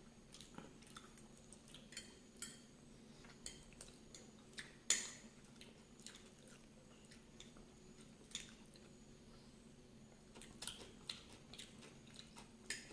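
Faint close-up eating sounds of someone chewing pasta: soft chewing with scattered wet mouth clicks, one louder click about five seconds in.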